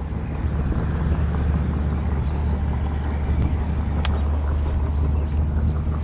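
Steady low rumble of diesel railway locomotives.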